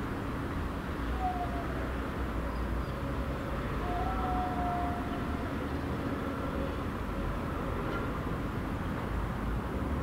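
Village outdoor ambience heard through a window: a steady low rumble, like distant traffic, with faint short drawn-out tones about a second in and again around four seconds in.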